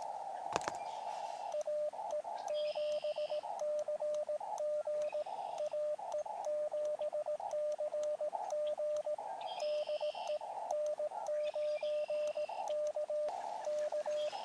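Elecraft KX2 transceiver sending Morse code: a steady sidetone beep keyed in quick dots and dashes, with the narrow-filtered receiver hiss cutting in and out between the elements, the way full break-in (QSK) sounds. Plain receiver hiss comes before and after the sending, and there is a single sharp click about half a second in.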